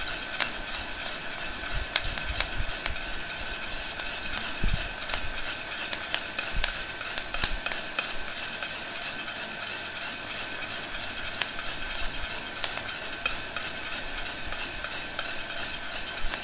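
Handheld heat gun blowing hot air steadily into a steel pot of roasting coffee beans, with a steady high whine, while a spoon stirs and scrapes the beans around the pot. Scattered sharp clicks run through it: beans cracking in first crack and the spoon knocking the pot.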